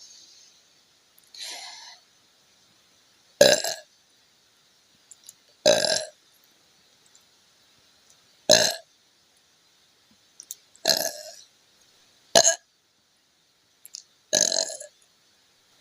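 A woman burping over and over after gulping a carbonated fruit soda: seven separate burps about two seconds apart, the first faint and the other six loud.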